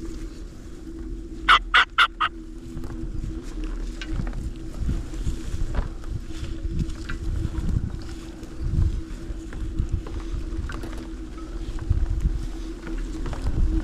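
Electric hunting bike being ridden over rough ground: a steady electric motor hum with tyre and wind rumble. About one and a half seconds in, four short sharp sounds come in quick succession, the loudest thing heard.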